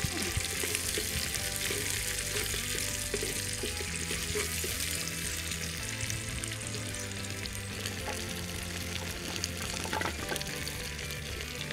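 Onion, chillies and greens sizzling in hot oil in a clay pot, stirred with a wooden spoon that scrapes the pot now and then.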